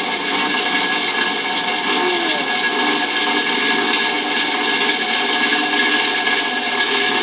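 Double grinder motor running at low speed, slowly spinning up a disc fitted with four loosely swinging hammer heads: a steady whine over a loud, even rushing noise.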